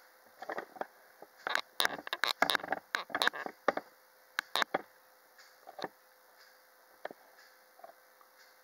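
Handling noise from the camera being zoomed in close: a rapid cluster of clicks and knocks for about four seconds, then three single clicks spaced a second or so apart.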